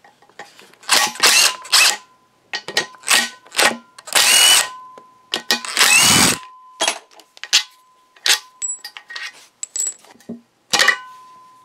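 DeWalt cordless impact driver running in several short bursts, backing out the screws that hold the variable-runner control motor onto a GM LZ9 3.9 L V6 intake plenum. Lighter clicks follow in the second half.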